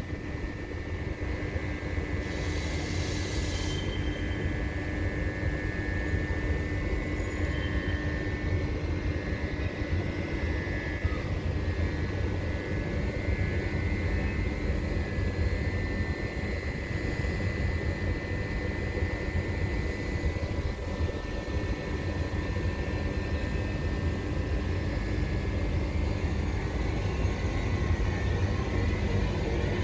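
A TAF electric multiple unit (Ale 426) humming steadily, with a low rumble and a high steady whine, and a short hiss of air about two seconds in.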